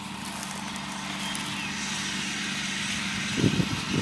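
Steady engine and vehicle noise, a low hum under a broad rushing haze that grows a little louder, with heavier low rumbling near the end.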